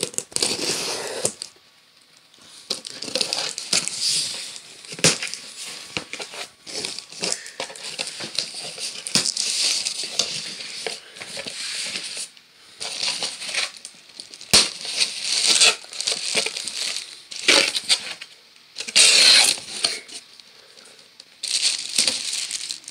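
Cardboard shipping box being torn open and handled: packing tape ripping, flaps scraping and rustling, and cellophane-wrapped cigar packs crinkling, in irregular bursts with a few sharp knocks.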